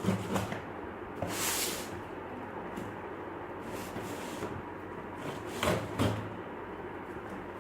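Cardboard shipping box being opened by hand: a short rasp of the cardboard or tape about one and a half seconds in, and dull knocks of the box being handled near the start and twice about six seconds in.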